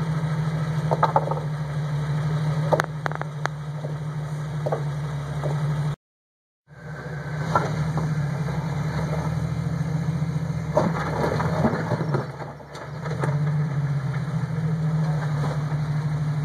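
Jeep Wrangler's engine running steadily at low revs as it crawls over rock, with a few short knocks along the way; the sound drops out completely for a moment about six seconds in.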